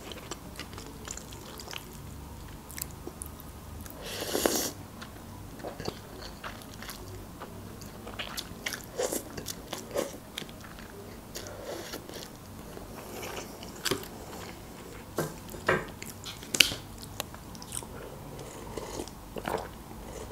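Close-miked eating sounds: chewing and slurping instant noodles, with many short clicks of a fork in the paper cup. A longer burst of noise comes about four seconds in.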